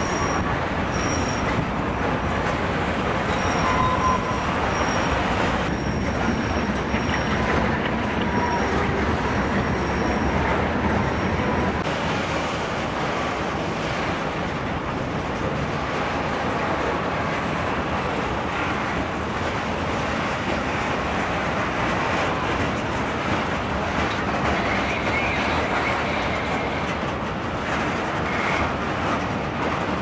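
Freight train of covered grain hopper cars rolling past, a steady rumble of wheels on rail, with a thin high wheel squeal coming and going over the first twelve seconds or so.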